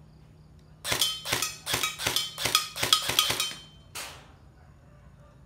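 East Crane E&C 308 airsoft electric rifle firing a quick string of about a dozen sharp shots over roughly two and a half seconds, then a single shot about half a second later.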